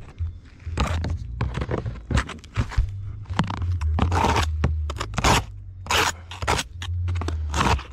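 Repeated scraping strokes of a hand tool worked over the roof surface around a vent, irregular at about one or two a second, over a low steady hum.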